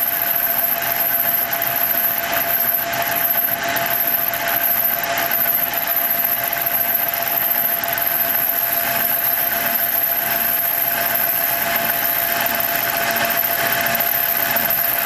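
Small metalworking lathe running steadily while its cutter turns a brass wheel blank held in a 4C collet, with a constant whine over the running noise. The cut is smooth, without chatter.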